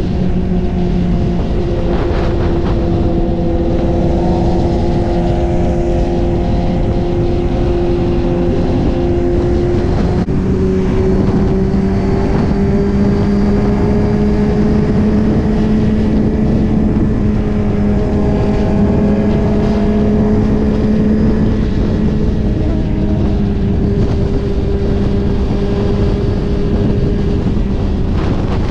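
Suzuki GSX-R1000 inline-four engine running steadily at highway cruising speed, heard from on the bike with a heavy rush of wind and road noise. The engine note steps up slightly about ten seconds in, then holds.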